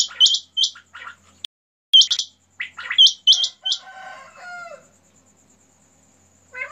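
Quails calling: quick groups of three sharp, high notes, one group at the start and another about three seconds in, with a single call between. Softer, lower chirps and warbles come in around the middle, and the calls stop for the last couple of seconds.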